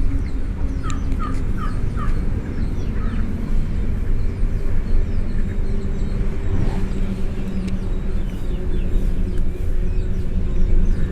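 Birds calling on a farm, with a quick run of four short calls about a second in and scattered chirps after, over a steady low rumble.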